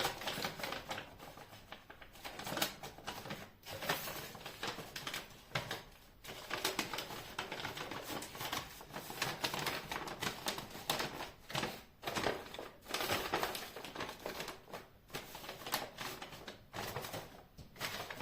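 Close, dense crackling and clicking of materials being handled and worked by hand, in quick irregular runs with a few short pauses.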